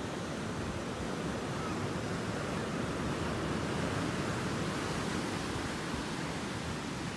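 Ocean surf washing steadily onto the shore, an even rushing noise that swells slightly near the middle.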